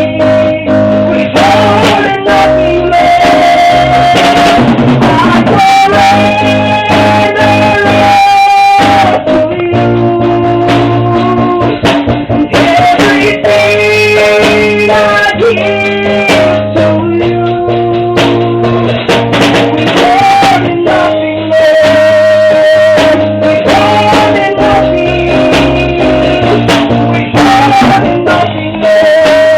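Music: a church worship song, with singing over instrumental accompaniment that includes guitar.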